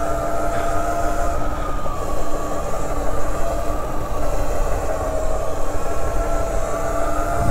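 Burromax electric mini bike's motor whining steadily under way, its pitch sagging and rising slightly with speed, over a low rumble of wind and tyres.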